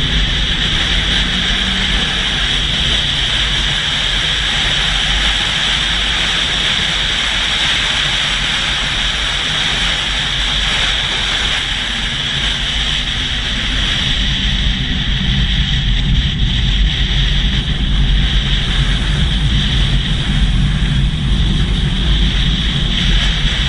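Steady, loud cabin drone of an aircraft in flight, engine and rushing air together, with a strong hiss.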